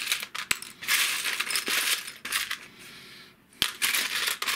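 Small plastic model kit parts clattering and rattling in a plastic tub as hands rummage through a box of spare bits. The rattling comes in bursts, with a brief lull about three seconds in and a couple of sharper clicks.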